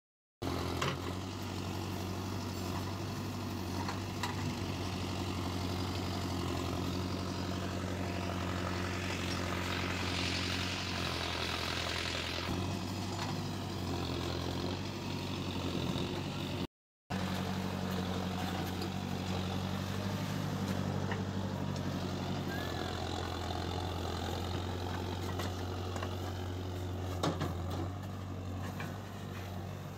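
Mahindra Arjun 605 Novo tractor's diesel engine running steadily, with a hissing sound rising and falling over a few seconds in the middle. The sound breaks off for a moment just past halfway, then the engine resumes.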